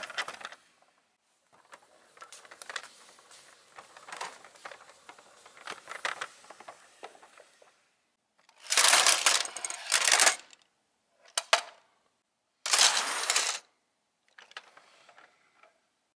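Plastic toy dump truck rolled across a play mat, the small toy cars in its bed rattling lightly. This is followed by loud clattering, in three bursts, as the toy cars tip out of the bed and tumble onto the mat.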